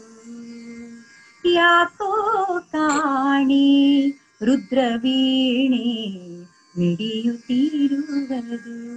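A woman singing a Kannada bhavageete (sung poem) solo, with wavering, ornamented notes and long held notes, broken by a few short pauses for breath.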